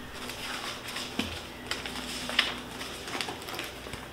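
Hands rustling through shredded paper packing in a cardboard box and picking up a sheet of paper, a run of irregular crinkles and rustles.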